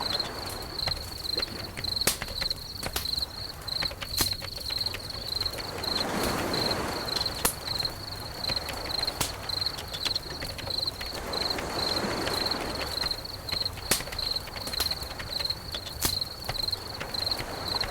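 A cricket chirping steadily in an even, fast pulse, about three chirps a second. Scattered sharp crackles sound throughout, and a soft rush of noise swells up twice, about a third of the way in and again about two thirds of the way in.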